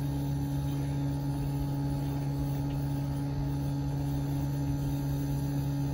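Daikin RXB18AXVJU mini-split outdoor heat pump unit running in heating mode just after first start-up, a steady low hum.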